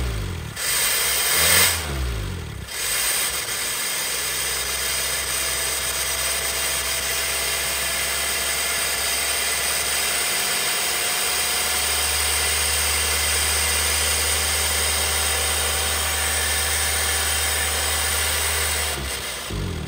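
1975 Honda CVCC's four-cylinder engine running with the radiator removed, water pump turning to push hose water through the block. It surges unevenly for the first few seconds, then settles to a steady run over a steady hiss, and shuts off about a second before the end.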